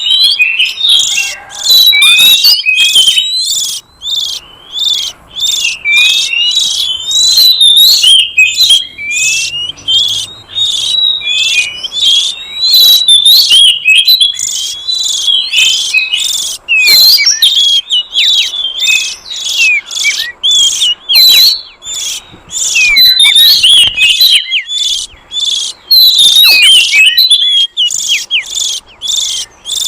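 Oriental magpie-robin (kacer) singing a loud, rapid, almost unbroken stream of high whistles and chattering notes, some swooping up and down in pitch, with only brief pauses.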